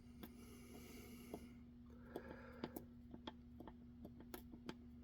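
Faint, scattered small clicks and ticks of a lock pick and tension wrench working the spool pins inside a Ruko 600 padlock, while the last pin is still unset. Two soft breaths can also be heard.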